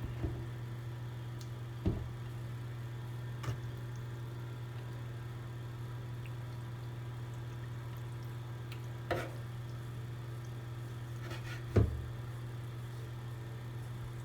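Cooking pot and utensils knocking and clicking now and then, about five times, the loudest near the end, over a steady low hum.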